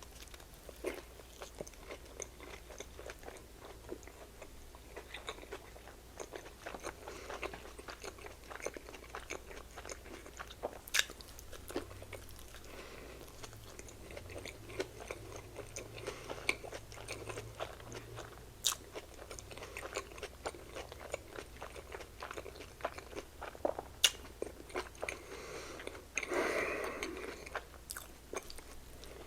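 Close-up sounds of a person eating mini hamburger sliders: soft bites, chewing and mouth sounds, with scattered light clicks and paper-wrapper rustles. A louder spell of rustling and chewing comes near the end.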